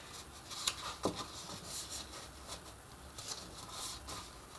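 Sheet of paper rustling as it is handled and wrapped around a chipboard tube, with a few light clicks and taps.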